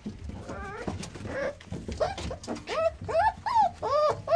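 American Staffordshire Terrier puppies whining and whimpering in a string of short high cries, each rising and falling in pitch. The cries come thicker and louder in the second half.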